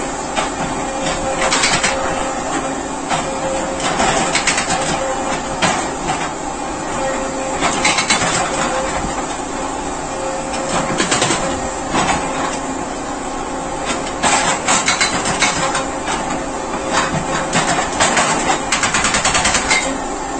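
Compact demolition machine's hydraulic tool working the rock face of a tunnel: a rapid, uneven run of hard impacts over steady machine noise.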